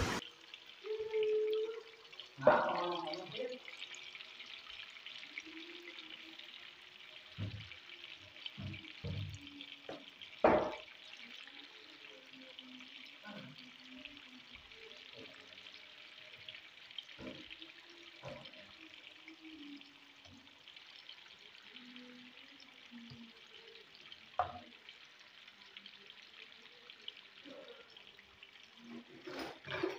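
Cassava chunks deep-frying in very hot oil: a steady, even sizzle. A handful of short knocks cut in, the loudest about ten seconds in.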